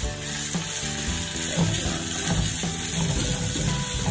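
Minced beef and sliced onions sizzling in oil in a frying pan as a wooden spatula pushes the meat around, with background music playing over it.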